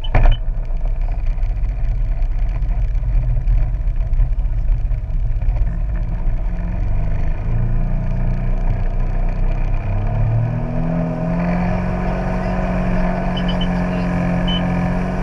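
Jet ski engine running steadily, then its pitch rises about ten seconds in as it speeds up.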